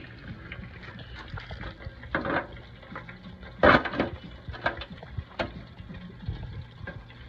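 Handling noise of a wire deep-fryer basket knocking and scraping as fried fish fillets are tipped out onto a foil tray, with scattered clicks and one loud rustling clatter about three and a half seconds in.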